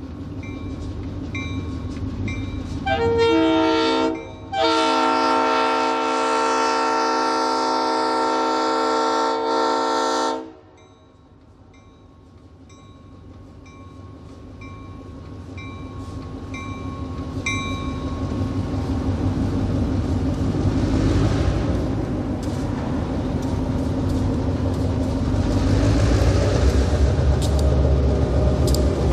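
Diesel locomotive's air horn sounding a short blast about 3 s in, then a long blast of about six seconds, while a bell rings about twice a second. After the horn stops, the locomotive's diesel engine grows steadily louder as it comes closer across the crossing.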